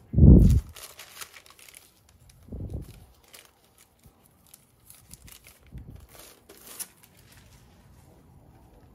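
Thin plastic inner sleeve crinkling and rustling as a vinyl LP is slid out of it by hand. A loud dull thump at the start and two softer thumps later come from handling the record and sleeve.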